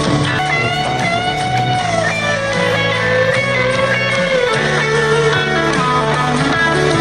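Background music: electric guitar playing a bending lead melody over steady bass notes.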